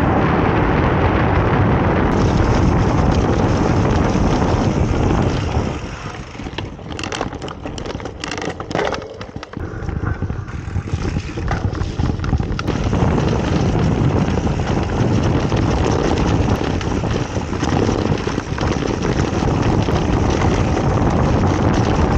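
Wind buffeting the microphone of a handlebar camera and knobby mountain-bike tyres rolling over a dirt trail on a fast descent. About six to ten seconds in the noise drops for a few seconds, with a few knocks and rattles from the bike, then it picks up again.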